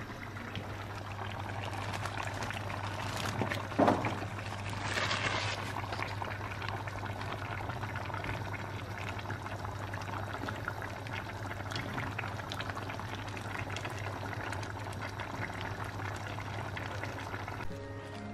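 A pan of stew bubbling on the hob, with crackling over a steady low hum, and a single knock about four seconds in.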